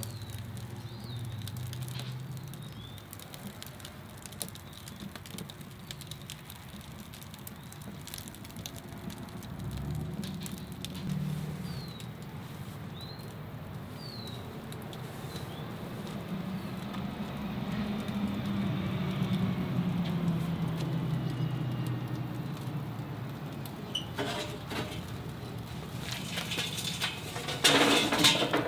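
Light crackling and popping from an offset smoker, steady throughout, over a low rumble. A few short bird chirps come in the first half, and there is a louder clatter near the end.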